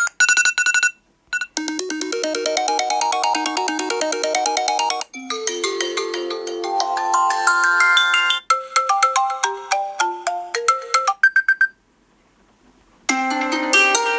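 Apple iPhone 8 Plus built-in ringtones played one after another, each a few seconds of electronic melody that cuts off into the next. A bright repeated tone ends, then come a fast rippling run of notes, a rising tune and a pattern of short plucked notes. A brief single tone follows, then about a second of silence before another tune starts near the end.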